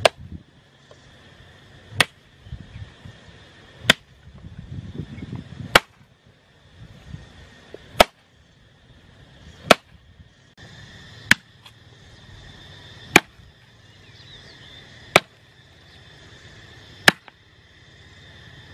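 A long bamboo pole striking the ground in sharp knocks at a steady pace, about one every two seconds, with rustling of grass and brush between strikes.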